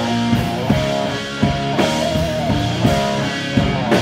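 Live band playing: electric guitars, bass, keyboard and drum kit, with a steady drum beat under sustained chords.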